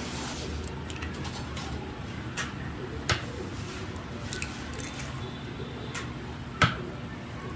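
Kitchen utensils and dishes clinking and knocking over a steady background hum. The two sharpest knocks come about three seconds in and near the end.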